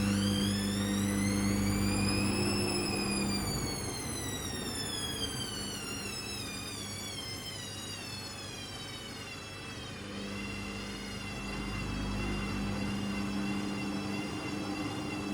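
Hoover Custom Vision washing machine's drum motor whining as it speeds up for the first couple of seconds, then falling in pitch as the drum slows until about ten seconds in, then starting to pick up again, over a steady hum.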